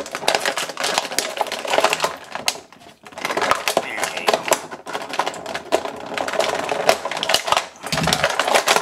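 Clear plastic blister packaging crinkling and crackling as it is handled and pulled apart, with a short pause about two and a half seconds in. A dull thump near the end.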